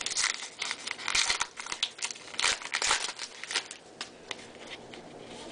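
Crinkling and rustling of a trading-card pack wrapper and cards being handled, in quick irregular bursts that die down after about four seconds.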